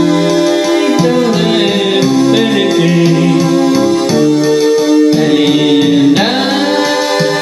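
Electronic keyboards playing held, organ-like chords over a steady drum-machine beat, with a man singing along into a microphone.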